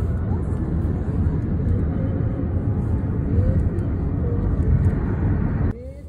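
Road and engine noise inside a moving car's cabin, a steady low rumble. It cuts off suddenly near the end, leaving faint music.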